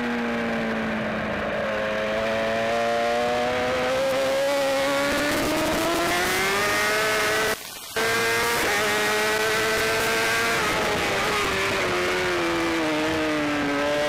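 BMW S1000RR inline-four race engine heard from on board at racing speed. The engine note dips at first, climbs steadily for several seconds as the bike accelerates, holds, then falls for a few seconds as it slows and starts climbing again near the end. The sound cuts out briefly about halfway.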